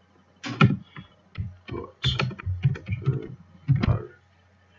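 Typing on a computer keyboard: an irregular run of key clicks lasting about three and a half seconds, stopping shortly before the end.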